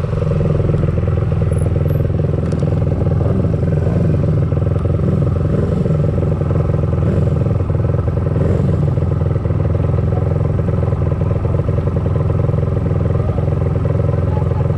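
Single-cylinder pit bike engine running at low, steady revs, heard close up from the bike itself.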